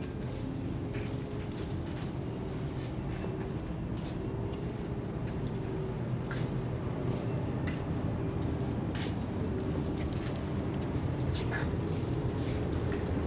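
Steady low rumble of a car driving, with a few faint clicks scattered through it.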